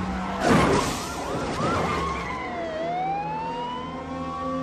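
A loud impact about half a second in, then a police car siren wailing, its pitch dipping and then climbing slowly.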